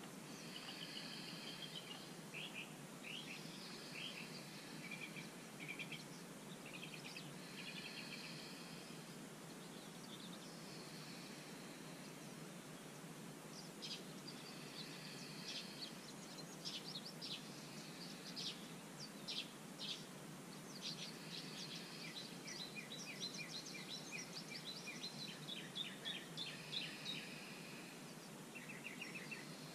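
Wild birds singing and chirping over a steady outdoor background hiss. The calls come in short phrases throughout and grow busier in the second half, with runs of rapid repeated notes.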